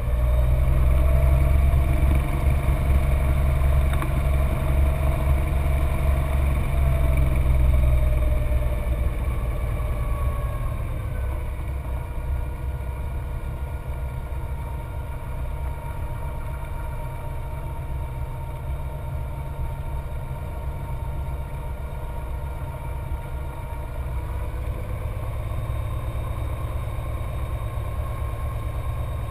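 Cessna 182's six-cylinder piston engine and propeller running at taxi power, heard from inside the cabin. It is louder for the first ten seconds or so; then the engine speed falls and it settles to a lower, steady run about eleven seconds in.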